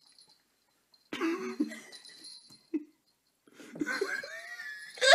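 A person laughing in uneven spurts, starting about a second in, with a short break before a longer, higher stretch of laughter near the end.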